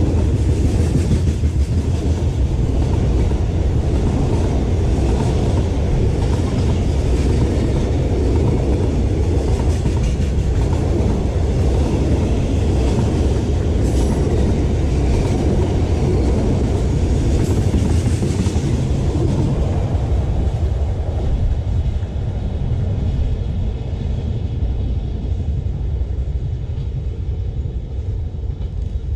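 A freight train of covered goods wagons rolling past close by: a loud, steady rumble and clatter of wheels on the rails, with a brief sharp high squeal or click about halfway through. The noise dies away over the last several seconds as the end of the train goes by.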